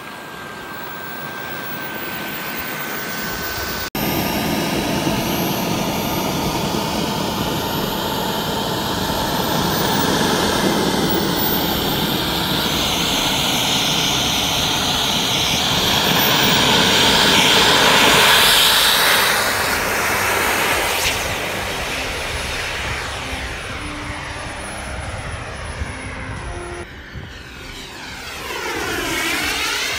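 Model jet turbine engines, including the KingTech K45 turbine in an Avios MiG-17 Fresco model, running with a high whine over a rushing hiss. The sound grows louder to a peak about two-thirds of the way through, then fades. Near the end a model jet passes low with a sweeping pitch.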